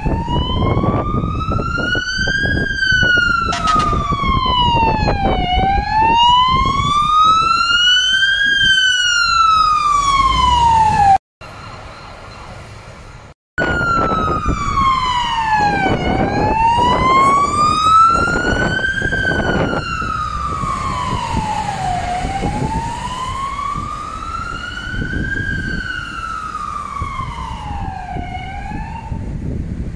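Fire engine siren on a slow wail, its pitch rising and falling about every three seconds, over traffic on a wet road. The sound cuts out for about two seconds near the middle, then the wail carries on.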